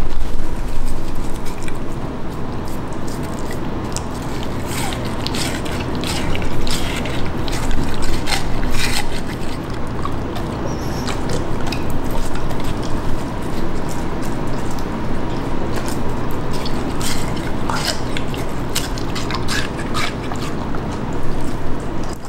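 A beagle crunching and chewing a chunk of watermelon, with many irregular crisp clicks of bites through the juicy flesh.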